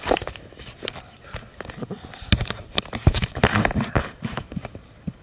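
Handling noise from a phone held against skin and clothing: irregular knocks, clicks and rubbing as it is moved around, thinning out near the end.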